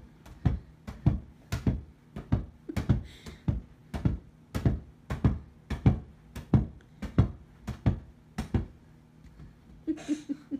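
A light ball being kicked up over and over, a sharp hit about twice a second, stopping shortly before the end.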